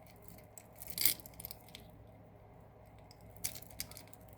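Pieces of costume jewelry clicking and clinking together as they are sorted by hand, a few separate clicks with the sharpest about a second in and two more near the end.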